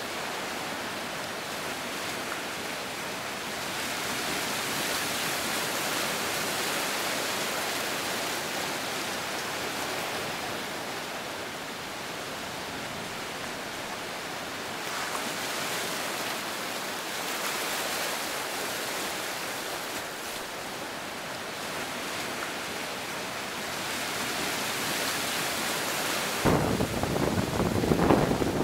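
Sea surf washing onto a sandy beach: a steady hiss of waves that swells and eases every few seconds. Near the end, gusts of wind start buffeting the microphone with a rough, louder rumble.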